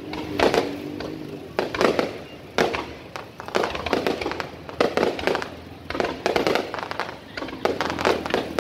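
Aerial fireworks bursting in quick, irregular succession, about two bangs a second, each bang followed by a short echo.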